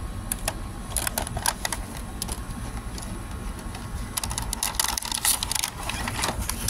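Cardboard camera box and the clear plastic packaging inside it being handled: a run of crinkles and small clicks, thickest about a second in and again from about four and a half seconds on.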